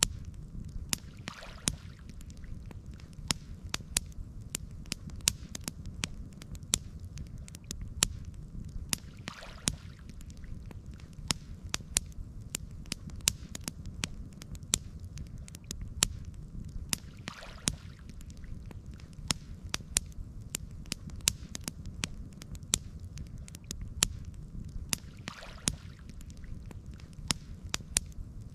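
Campfire burning with frequent sharp crackles and pops over a steady low rumble. A soft whoosh swells and fades about every eight seconds.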